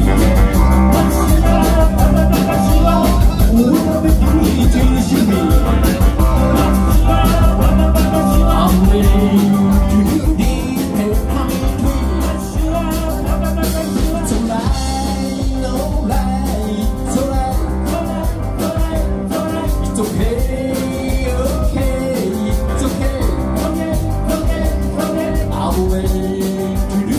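Live band music from electric bass, electric guitars, keyboard and drum kit, playing loud and steady.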